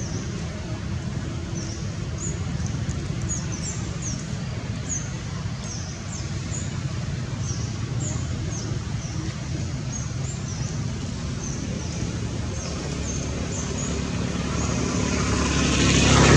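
Steady low road-traffic rumble with short high chirps repeating throughout; near the end a motor vehicle approaches and grows loud.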